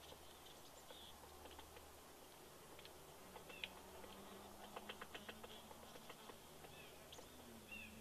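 Woodpecker pecking at a pine branch: faint, quick irregular taps on wood, busiest a little past the middle, with a couple of short high chirps.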